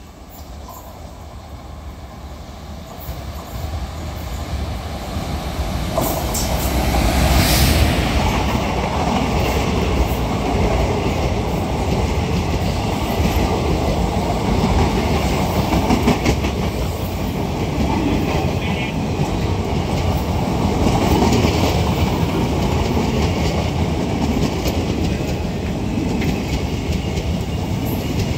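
Express passenger train running through a station at speed behind an electric locomotive: the rumble grows over the first several seconds as the locomotive arrives and passes, then the coaches stream by with a steady rush and clickety-clack of wheels over the rail joints.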